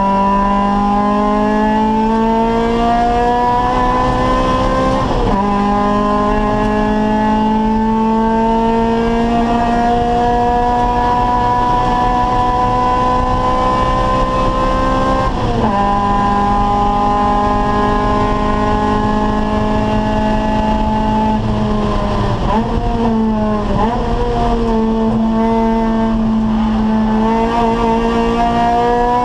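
Acura Integra race car's four-cylinder VTEC engine under hard acceleration, its pitch climbing slowly through long pulls in the gears. The pitch drops sharply at upshifts about five seconds in and again about halfway through. Around three quarters of the way it falls and jumps in quick blips as the car downshifts, then pulls again.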